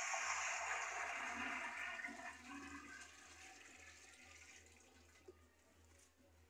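Water poured from a plastic bucket into a large cooking pot: a splashing stream that holds for about two seconds, then tapers off as the bucket empties.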